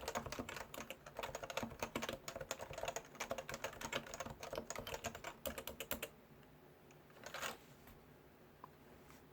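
Fast typing on a Leopold FC980C keyboard with Topre electrostatic capacitive switches, a quick run of soft keystrokes that stops about six seconds in. About a second later comes one brief, slightly longer sound.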